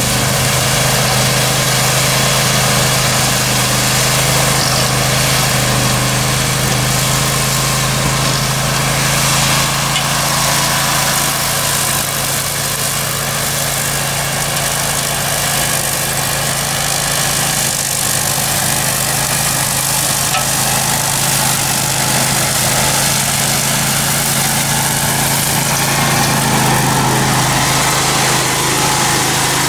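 Grillo Climber 9.22 ride-on mower's 22 hp engine running steadily while the mower cuts tall, dry grass on a slope.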